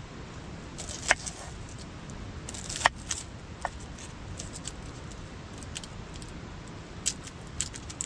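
Dry outer skins being peeled off onions by hand: a handful of sharp crackles and clicks scattered over a steady low background noise.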